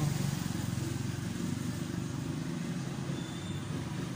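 A steady low mechanical hum, like a motor or engine running, with an even background noise over it.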